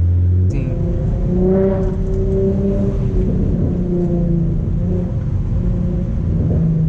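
Infiniti G35's 3.5-litre V6 exhaust while driving. Its steady drone changes about half a second in to a rough burble of pops and crackles.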